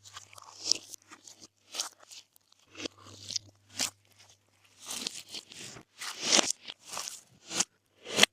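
Glossy slime being mixed and pressed by hand, giving irregular sticky pops and crackles, about a dozen short bursts with uneven gaps.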